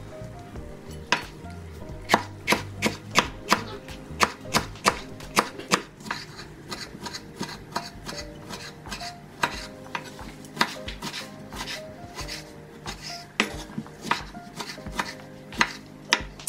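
Kitchen knife cutting through a pale yellow pepper and then tomatoes onto a wooden cutting board, each cut ending in a sharp knock of the blade on the wood. A quick, regular run of knocks, about three a second, comes a couple of seconds in; after that the cuts are sparser and more uneven.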